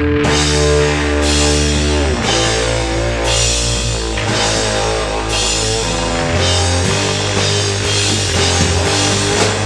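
Rock band playing live: electric guitar and drum kit, with cymbals washing over held chords that change about every two seconds.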